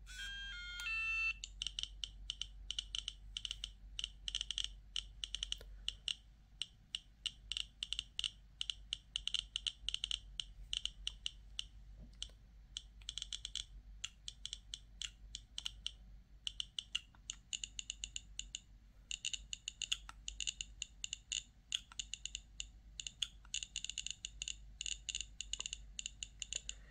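Radiacode 103 scintillation detector powering on with a short run of quick beeps that step in pitch. Its speaker then clicks at irregular intervals, several clicks a second, one click for each detected count of natural background radiation at about 0.11 to 0.13 µSv/h.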